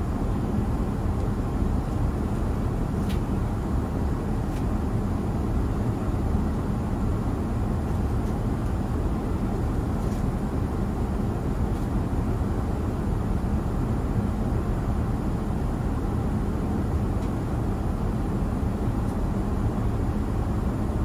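Steady low rumble of Airbus A350-900 cabin noise, the engines and airflow heard from a passenger seat. A few faint clicks sound over it.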